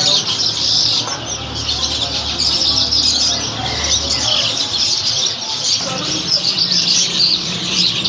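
Many caged lovebirds and cockatiels chirping and chattering at once, a dense unbroken mass of short, high, overlapping calls, over a steady low hum.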